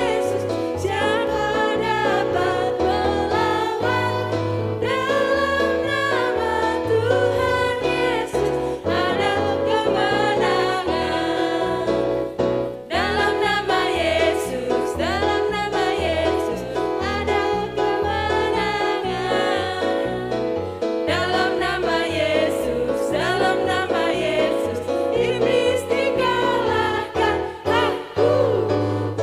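Christian praise song: voices singing a melody over instrumental backing with a steady, stepping bass line.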